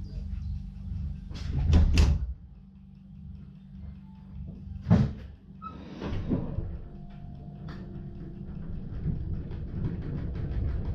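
SLM electric rack-railway railcar standing at a halt with its equipment humming steadily: a few heavy door-like clunks about two seconds in and another at about five seconds, then a short hiss. Regular ticking at about four a second grows louder near the end as the train starts to pull away.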